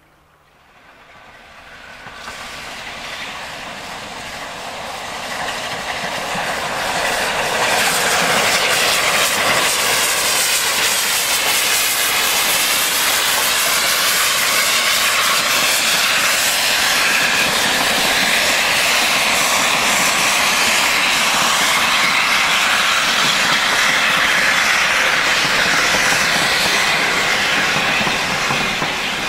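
Peppercorn A1 Pacific steam locomotive 60163 Tornado passing with its train of coaches. It grows louder over the first several seconds as it nears, then gives a steady loud rush of the locomotive and coaches running by close at hand.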